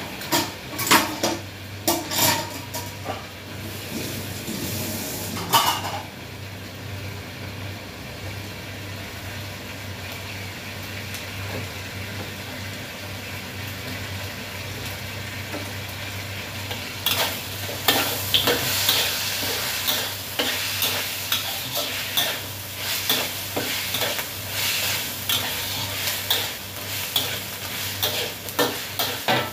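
Chicken and tomato frying in a wok over a gas burner: a steady sizzle, with a spatula clanking against the wok a few times in the first six seconds, then scraping and clattering quickly around the pan from about seventeen seconds in as the food is stirred and tossed.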